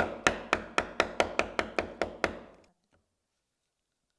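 Mallet striking a chisel chopping a mortise in elm, bevel down: a quick, even run of about a dozen sharp knocks, four to five a second, that stops a little over two seconds in.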